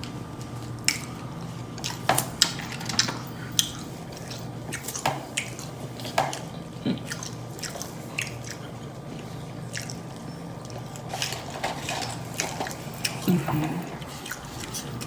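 Close-miked open-mouth chewing of fast food with wet lip smacks and sharp mouth clicks, coming in irregular bursts.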